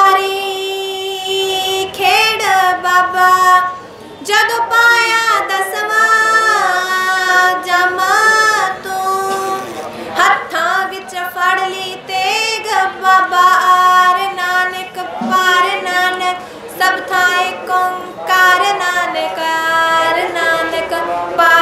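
A young woman singing a devotional song solo into a microphone, unaccompanied, in long held notes with short breaths between phrases.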